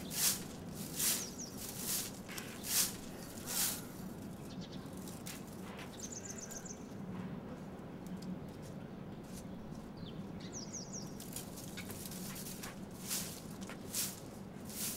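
Long-handled broom sweeping fallen leaves off pavement in regular strokes, about one a second, pausing in the middle and starting again near the end. A small bird twitters briefly twice in the pause.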